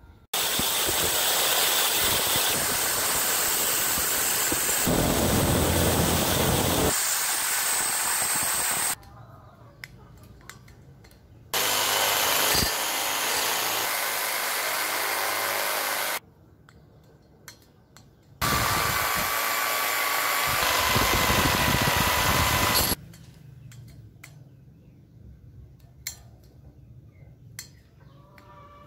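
Corded electric drill running in three long bursts of several seconds each, the bit grinding into the heads of the metal screws that fix galvanised wall spikes to a concrete wall, stripping the screw heads.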